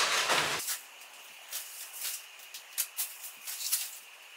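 Latex balloons being handled and pulled down from a balloon garland. There is a loud rush of noise at the start, then faint, irregular rustling and crackling with a faint steady high tone.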